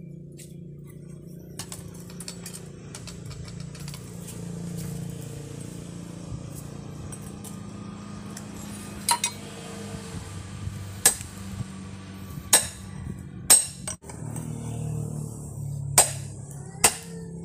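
Hand hammer striking a red-hot machete blade on a small steel anvil: sharp, ringing metal-on-metal blows, about seven in the second half, the last few coming closer together.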